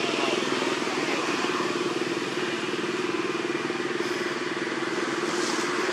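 An engine runs steadily with a low, even hum.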